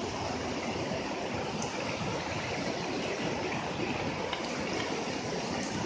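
River water rushing steadily over rocks and rapids.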